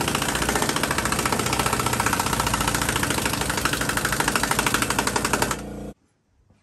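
Loud machine running with a fast, even hammering rattle that cuts off suddenly near the end.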